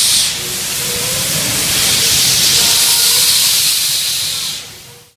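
YG-class metre-gauge steam locomotive hissing loudly as steam escapes low down around its cylinders and wheels. The hiss dips briefly just after the start, holds steady, then fades out near the end.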